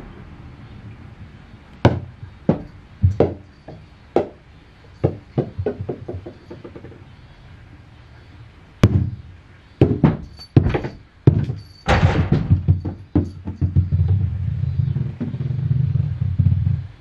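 Sharp knocks of small rubber bouncy balls striking and bouncing on wooden floorboards as a kitten bats them, single knocks at first and quicker clusters from about nine seconds in. A low rumble runs underneath over the last few seconds.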